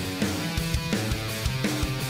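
Background music with guitar over a steady drum beat.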